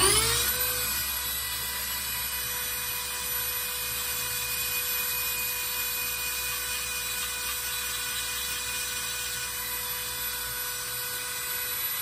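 Dremel rotary tool driving a flex-shaft handpiece, spinning up right at the start and then running at a steady high whine as its bit cuts a recess into a micarta knife handle scale.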